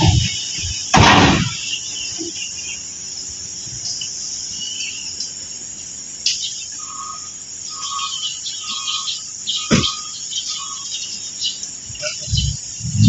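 Outdoor ambience with a steady high chirring of insects. A brief loud rush of noise comes about a second in. In the second half come five short, evenly spaced tones about a second apart, with a sharp click among them.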